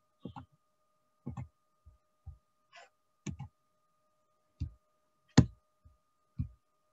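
About a dozen irregular clicks and taps on a computer's controls as someone tries to advance a presentation slide that is stuck. A faint steady tone sounds underneath.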